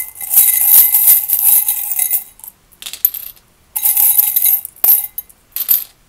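Small metal letter tokens jingling and clinking inside a glass tumbler as it is shaken, in two bouts with a pause between, then a few separate clinks near the end.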